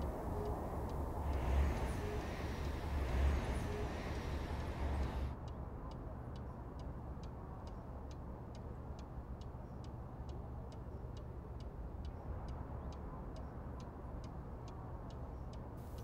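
A low rumble of city traffic that cuts off about five seconds in. It gives way to a quiet room with a steady, quick ticking like a clock, a few ticks a second.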